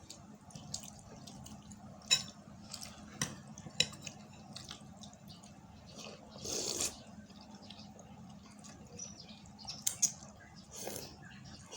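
Eating a bowl of chicken noodles: cutlery clicks and clinks against the bowl every second or so, with a short wet slurp about six and a half seconds in and a softer one near the end.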